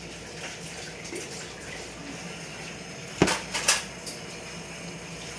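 A steady low hiss, then two sharp knocks on the cardboard box about half a second apart, a little past three seconds in, as a hand reaches in at the box.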